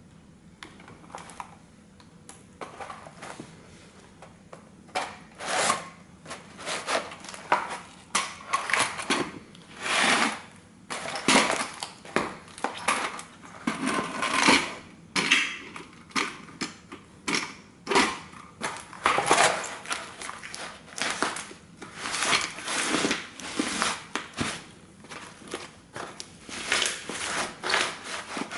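A vintage tin toy car's thin sheet-metal body crumpling, crunching and scraping under heavy combat boots being stomped and ground onto it. It is quiet for the first few seconds, then loud crunches come every second or two.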